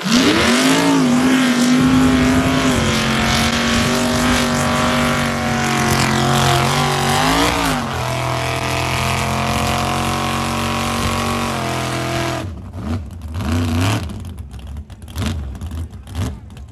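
Mega truck engine at full throttle, holding a high, steady pitch as it tears through the mud hole, with a brief rise and dip about seven seconds in. About twelve seconds in the throttle drops off and the engine falls to uneven blips as the truck slows in the deep mud.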